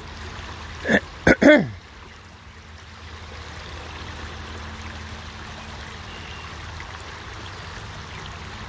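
Creek water flowing steadily, with a man clearing his throat in two or three short, loud bursts about a second in.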